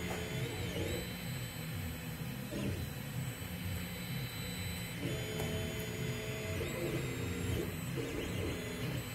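Anycubic Mega Zero 3D printer printing: its stepper motors whine in tones that change pitch in quick steps as the print head moves back and forth. Underneath runs a steady whir from the print head's cooling fan.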